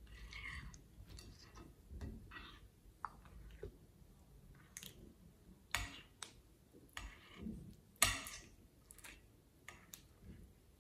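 Hand squishing and kneading thick, glossy slime: irregular soft wet squelches with sticky clicks and pops as the slime pulls off the fingers, the loudest pop about eight seconds in.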